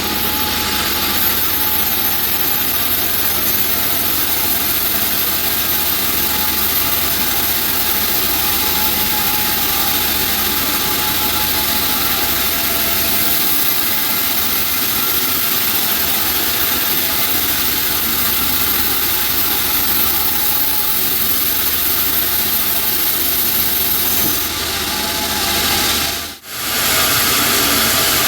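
Band sawmill running steadily and loudly, a continuous mechanical noise of the machine and its blade working timber. It drops out for a split second near the end, then carries on.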